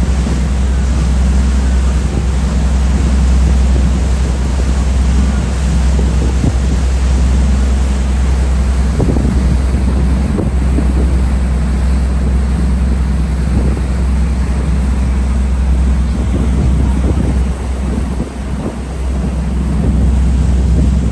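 Steady low machine hum under a continuous rush of wind noise on the microphone, dipping briefly near the end.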